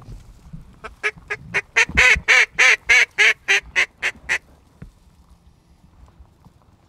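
Mallard duck call blown close by: a quick run of about fifteen loud quacks that builds and then trails off over some three and a half seconds. It is calling to a flock of ducks circling overhead.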